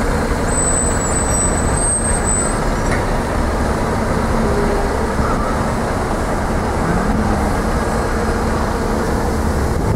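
Diesel engine of a single-deck city bus running as it pulls away, over steady street traffic noise. A thin high whine sounds for a couple of seconds near the start.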